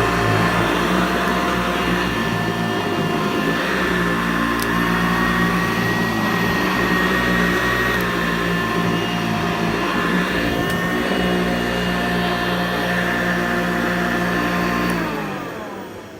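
Vacuum cleaner motor running steadily, then switched off about fifteen seconds in and winding down, its pitch falling as it fades.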